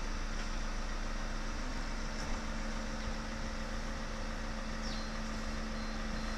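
Steady motor hum with a constant low tone and no change in speed. A faint, thin high whine joins about five seconds in.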